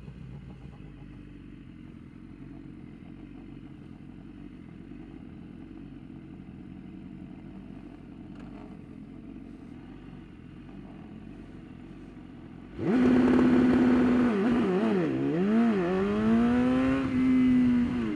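BMW S1000RR inline-four race engine idling low, then about 13 s in revved hard to a held, fixed pitch for a launch-control start. The revs sag and climb back twice as the clutch is let out, then hold steady again. It is a launch-control attempt that the rider says doesn't work and just hits hard.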